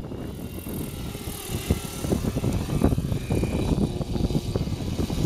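Nitro-powered Thunder Tiger Raptor 90 RC helicopter running, its engine and rotor faint under gusty wind buffeting the microphone.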